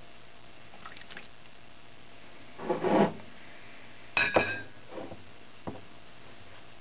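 Kitchen containers handled on a countertop: a rubbing scrape about two and a half seconds in, then a sharp clink with a brief ring as the broth-filled grease separator cup is set down, followed by two light knocks.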